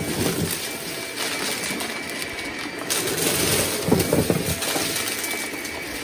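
Shark stick vacuum running on carpet, sucking up confetti and balloon scraps with scattered crackles as debris is pulled in. The noise gets louder about three seconds in.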